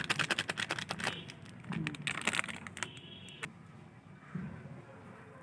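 Flour poured onto chopped coriander leaves: a rapid, dense crackling patter that thins out about a second in, followed by a few scattered rustles and clicks, stopping about three and a half seconds in.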